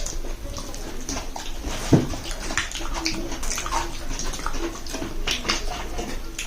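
Close-up mukbang eating sounds from eating rice pudding: many short wet clicks and mouth smacks, with one sharper knock about two seconds in.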